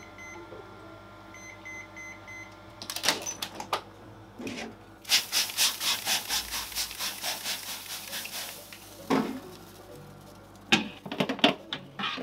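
A plastic trigger spray bottle misting water into a hot oven, about a dozen quick sprays in a row, to make steam before the bread goes in. It is preceded by a few short electronic beeps from the oven. Near the end comes a clatter as a metal baking tray is knocked and slid onto the oven rack.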